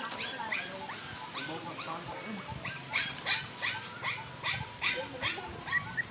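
A puppy whimpering: a string of short, high, squeaky whines, coming faster and louder from about halfway through, at roughly three a second.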